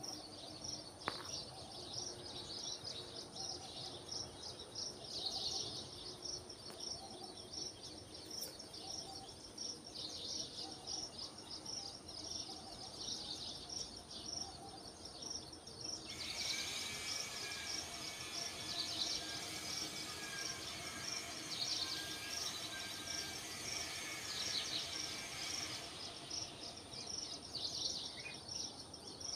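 Outdoor ambience of birds calling over an evenly repeating high chirp. For about ten seconds in the middle, a denser chattering of calls joins in.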